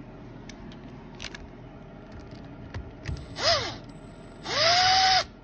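Cordless drill driving a bolt into the engine case, in two short bursts: a brief one about three seconds in that rises and falls in pitch, then a longer one that spins up, holds a steady pitch and cuts off suddenly. A few faint clicks of small parts being handled come before.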